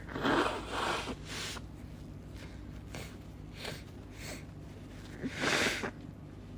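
A woman sniffling and blowing her nose: two strong nasal blows at the start, a few faint sniffs, then a longer, louder blow near the end.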